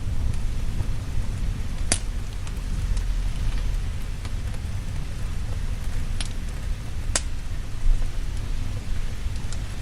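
Steady rain over a low rumble, with a few sharp pops of a crackling wood fire: three clear ones, about two seconds in and around six and seven seconds.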